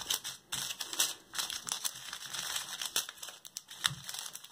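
Small clear plastic bags of diamond painting drills crinkling and rustling in a series of irregular crackles as they are picked up and gathered together in a hand.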